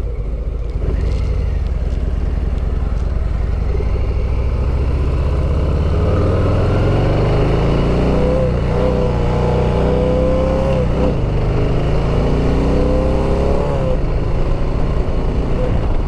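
Harley-Davidson motorcycle's V-twin engine running under way, its pitch climbing as it accelerates about four to seven seconds in, then running on steadily.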